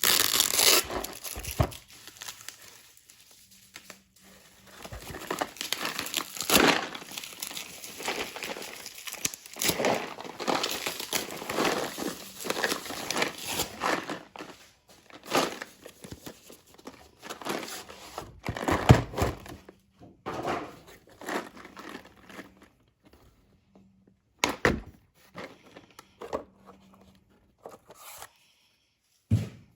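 Packaging crinkling and tearing as a Cleco kit is unpacked by hand, with irregular rustles and occasional sharp clicks and knocks, the loudest a little under two-thirds of the way in.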